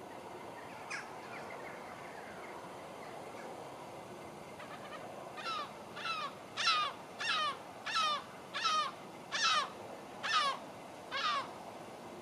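A crow cawing about nine times in a row, roughly one short, falling caw a second, starting about halfway in, over a steady faint background hiss.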